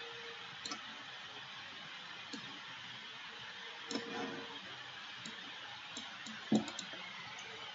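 Scattered, irregular clicks of a computer mouse and keyboard, a few at a time, over a steady hiss.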